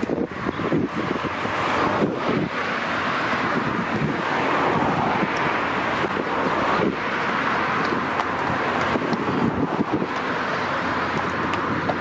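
Wind buffeting the microphone: a steady rushing noise with uneven low gusts, over which horses' hooves clip-clop faintly as they walk along the path.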